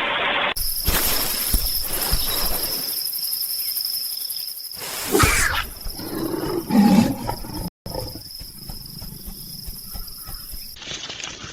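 Steady high-pitched insect chirring, joined with a loud animal call that comes about five to seven seconds in. The sound cuts off and changes abruptly several times.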